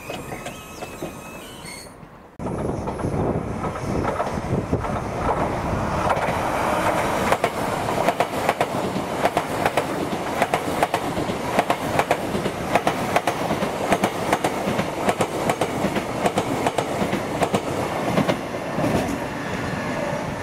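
A train running past on the line, its wheels clicking rapidly over the rail joints amid a steady rush of rail noise. It starts abruptly about two seconds in, after a quieter stretch with a few faint high-pitched tones.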